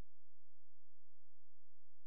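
A steady low hum that never changes, with no other sound on top of it.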